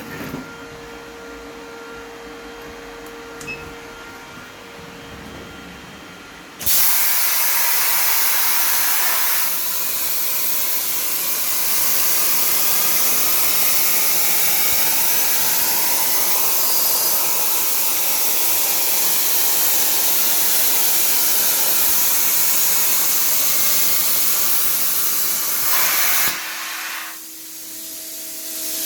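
CNC plasma cutter: a low machine hum, then about seven seconds in the plasma torch arc starts with a sudden loud, steady hiss that runs about twenty seconds while cutting and stops abruptly. After it stops, the quieter hum with steady tones returns.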